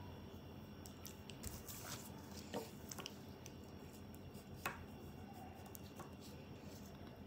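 Quiet room tone with a few faint clicks and soft rustles, the sharpest click about two-thirds of the way through.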